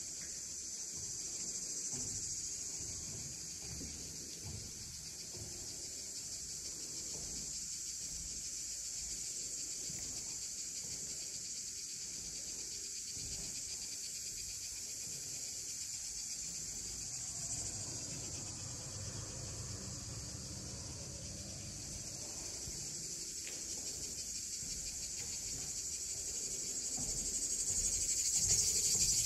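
A steady, unbroken high chorus of insects chirring outside, growing louder near the end.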